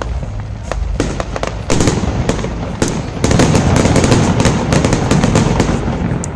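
Fireworks display: a string of sharp bangs from bursting shells, then a dense run of crackling from about three seconds in that eases off near the end.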